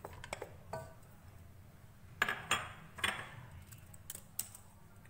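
Glass bowl clinking against a non-stick cooking pot as sliced onions are tipped onto raw beef, then a wooden spatula knocking and scraping in the pot. A handful of separate sharp clinks and knocks, one with a brief ring near the start and the loudest about two to three seconds in.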